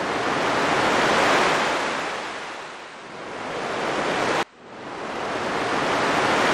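Ocean surf washing in swells that rise and fall, with a sudden break about four and a half seconds in before it builds again.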